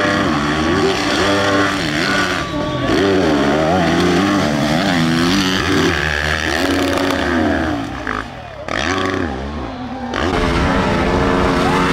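Dirt bike engines revving hard under load on a steep hill climb, the pitch rising and falling repeatedly with throttle, sometimes two engines at once. The sound changes abruptly a few times, and near the end it settles into a steadier engine note.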